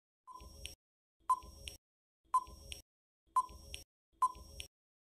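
Countdown timer sound effect: five short beeping ticks, about one a second.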